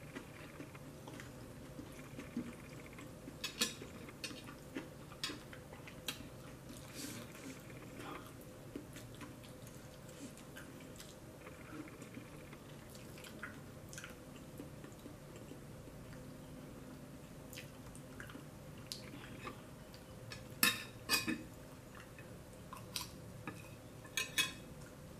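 Close-up eating sounds: scattered mouth smacks and clicks from someone eating rice and shrimp by hand, with a spoon clinking now and then on a ceramic plate, all over a faint steady hum. The loudest cluster of clicks comes about two-thirds of the way in, and a few more come near the end.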